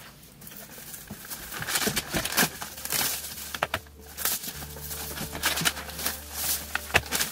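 Rustling and knocking as cardboard-framed pleated air filters are handled and set down on a wooden workbench. Low background music comes in about halfway through.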